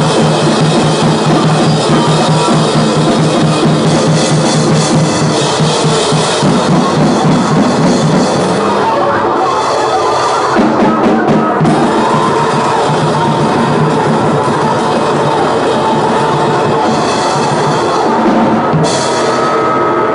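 Noisegrind/noisecore recording: loud, dense distorted noise over pounding drums, switching abruptly between sections several times.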